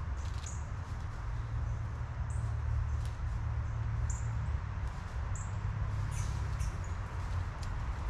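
Backyard bird-feeder ambience: short, high bird chip notes every second or so and brief rustling clicks of a squirrel foraging in dry leaves, over a steady low rumble.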